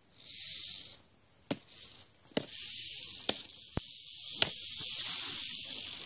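Timber rattlesnake rattling its tail: a short burst of high, dry buzzing, then a longer continuous buzz from about two seconds in, with a few sharp taps over it.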